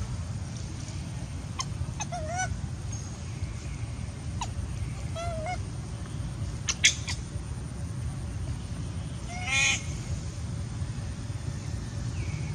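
Baby long-tailed macaque giving short, wavering crying calls every few seconds, with one louder, harsher cry about nine and a half seconds in. A few sharp clicks and a steady low rumble sit underneath.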